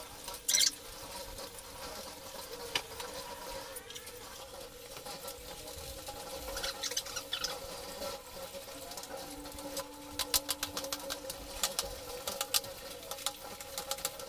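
Budgerigars chirping and chattering in a breeding room, with scattered small clicks and taps, over a faint steady hum.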